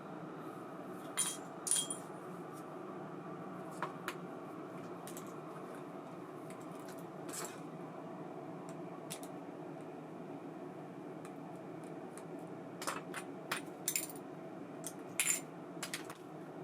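Small metal reel parts clinking and tapping as they are handled, with short ringing clicks: a couple near the start and a quick cluster near the end, over a steady low hum.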